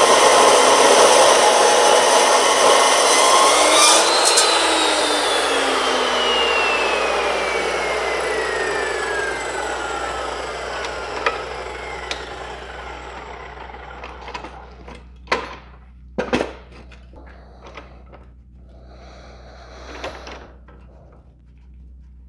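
A 14-inch dry-cut metal chop saw grinds through a steel railroad rail. About four seconds in its whine rises briefly, then falls steadily as the blade winds down, and the noise fades over several seconds. A few sharp knocks and clunks follow.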